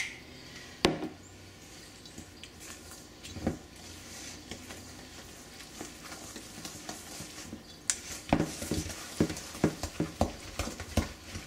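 Spoon stirring milk into biscuit dough in a stainless steel mixing bowl. There are a few scattered knocks against the bowl, then a quick run of knocks and thuds in the last few seconds as the spoon is worked through the stiffening dough.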